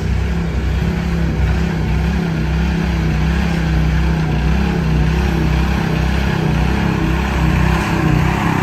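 Loaded multi-axle heavy-haul trailer and its rear steering dolly rolling slowly past close by, with a steady low engine drone over the rumble of the tyres.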